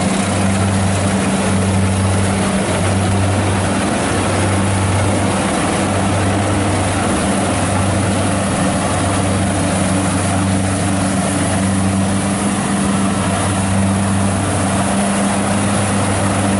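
Kubota 60 combine harvester running steadily while it cuts and threshes rice: its diesel engine gives a constant low hum over an even rushing noise from the machine.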